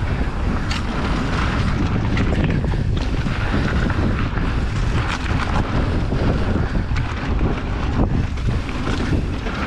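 Wind buffeting the microphone of a mountain bike's camera and the tyres rolling over a dirt trail during a fast descent, with a few sharp knocks and rattles from the bike over bumps.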